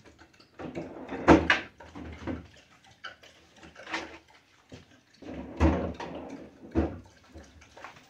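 Food containers and items knocking and clattering against the plastic shelves and bins of a Kenmore French-door refrigerator as it is emptied out by hand. There are several separate bumps, the loudest about a second in and again past five seconds, with quieter shuffling between them.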